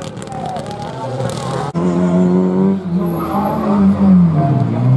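Rally car engines: first a quieter car going past, then, louder, a rally car approaching under hard acceleration, its engine note climbing and dropping with each gear change.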